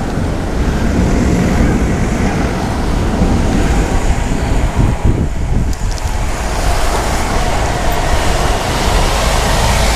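Strong storm wind and heavy rain, the wind buffeting the microphone in a loud, fluctuating low rumble with a rushing hiss above it.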